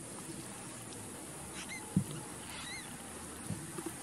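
Newborn kittens giving short, high-pitched squeaking mews, two of them, with a soft thump about two seconds in and a few light knocks near the end.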